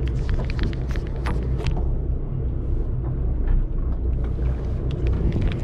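Fishing boat's engine running with a steady low drone, with short clicks and knocks scattered over it.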